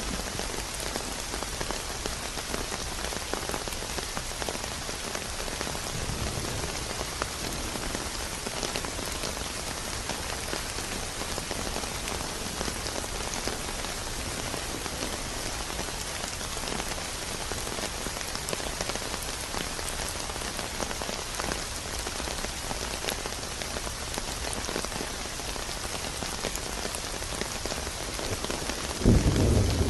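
Steady rain falling and pattering on a surface. About a second before the end a loud, low rumble of thunder sets in.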